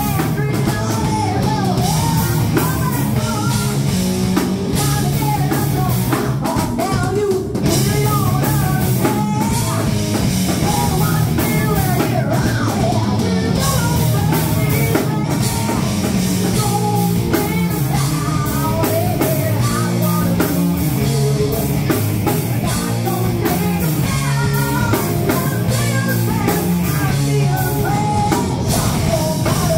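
Loud live rock band playing: electric guitars and a drum kit driving a steady beat, with a woman singing over them.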